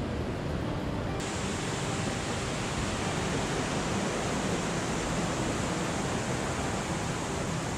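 Steady rush of a fast mountain river's white water, an even noise with no break.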